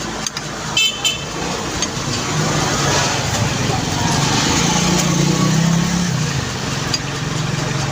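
Street traffic: a motor vehicle engine running close by, its hum rising toward the middle and easing off after about six seconds, with a few sharp clicks about a second in.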